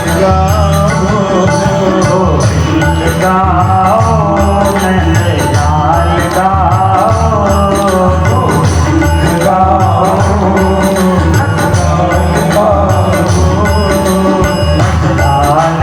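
Devotional bhajan: a voice singing over loud instrumental accompaniment with a steady percussion beat.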